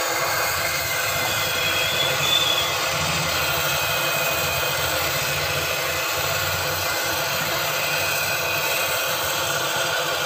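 Gas welding torch flame burning steadily with a hiss over a low rumble as aluminium is melted into a weld on a rickshaw's silencer bracket.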